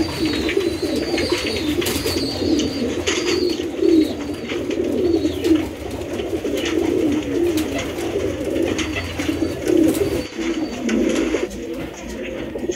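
Domestic pigeons cooing continuously, calls overlapping, with a short dip a little after ten seconds in.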